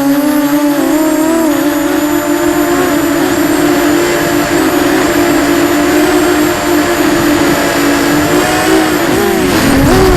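Eachine Falcon 250 FPV quadcopter's motors and propellers whining in flight, a loud steady buzz whose pitch wavers slightly with the throttle. About nine seconds in, the pitch dips and swings up and down briefly before settling again.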